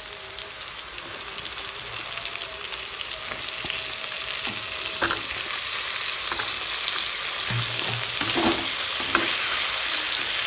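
Tomato-onion masala sizzling as it fries in hot oil in a pan, with potatoes just added, and a spatula stirring it. The sizzle grows gradually louder, and a few short scrapes or knocks of the spatula against the pan come in the second half.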